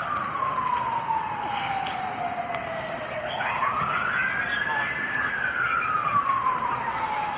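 Emergency-vehicle siren in a slow wail: it falls steadily, climbs again about three seconds in, and then falls a second time.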